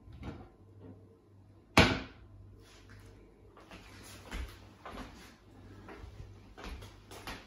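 Kitchen handling noises: one sharp knock about two seconds in, then lighter knocks and rustling as things are picked up and moved at the counter.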